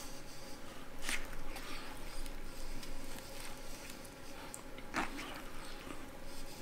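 Close-up eating sounds: a man chewing fried chicken, with a few sharp mouth smacks. In the second half his fingers pull a piece of fried chicken apart, crust and meat tearing off the bone.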